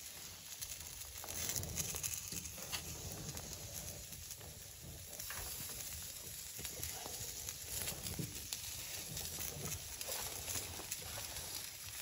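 Raw chicken wings sizzling lightly on a wire grill basket set on a hot wood stove. Scattered small clicks come as more wings are laid on the grill.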